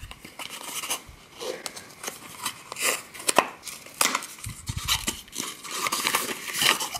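Small cardboard blind box handled and torn open by hand: a run of clicks, scrapes and rustles as the card flaps are pried apart, with a few dull knocks about halfway through.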